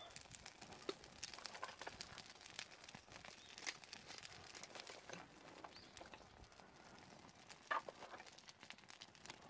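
Faint crackling and ticking of a small fire of burning paper and split kindling in a mesh fire stand, with light wooden clicks as sticks are laid across the flames and one sharper snap near the end.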